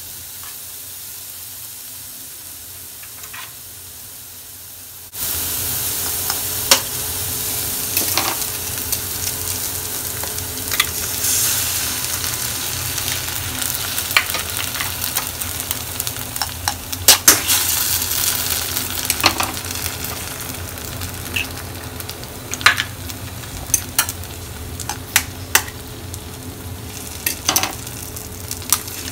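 Onion paste and eggs frying in hot oil in a metal kadai: a steady sizzle that turns suddenly much louder about five seconds in. Sharp clicks and taps against the pan come throughout, most of them near the end as eggs are cracked over it.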